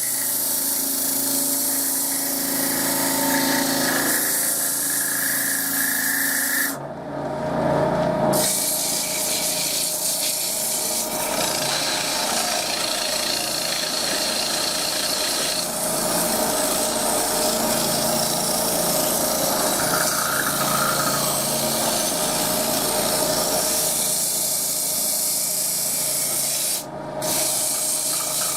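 Wood lathe running with sandpaper held against the spinning wooden cup, a steady rubbing hiss over the motor's hum. The hiss drops away briefly twice, once about a quarter of the way in and once near the end.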